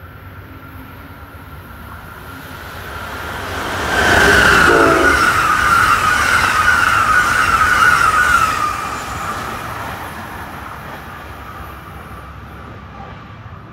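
Amtrak passenger train running through a station at speed: the sound builds as it approaches, is loudest for about four seconds as it rushes past with a high whine over the rumble of wheels, then fades away.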